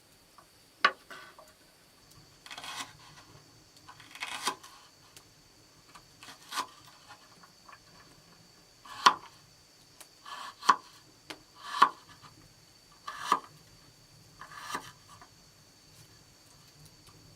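Hand work with sticks: about ten separate short scrapes and sharp knocks, a second or two apart, the sharpest knocks about a second in and about nine and twelve seconds in.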